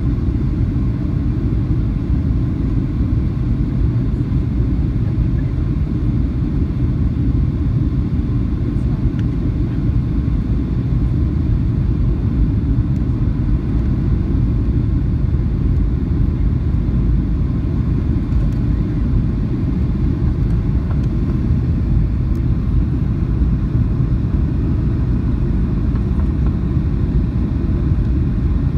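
Steady low rumble of cabin noise in a Boeing 737-800 on descent: engine and airflow noise heard from inside the cabin at a window seat over the wing.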